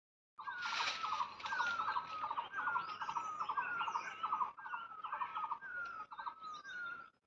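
A bird calling over and over, almost twice a second: each call a short falling whistle joined to a quick rattle, with fainter higher calls of other birds or insects behind it.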